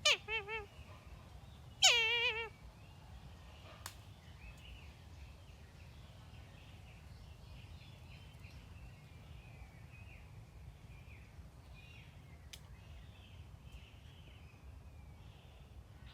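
Kite calling twice: two short screams that fall in pitch with a fast quaver, a weaker one at the start and a louder one about two seconds in.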